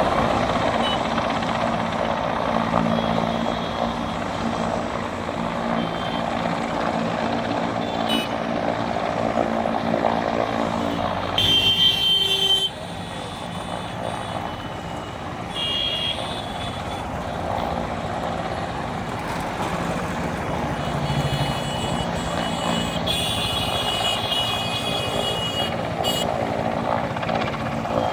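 Steady engine noise from motor vehicles, dropping abruptly in level a little under halfway through, with scattered high tones.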